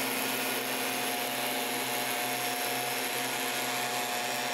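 Stihl backpack mist blowers' two-stroke engines running steadily while blowing out insecticide spray against ticks: an even drone with a constant whine.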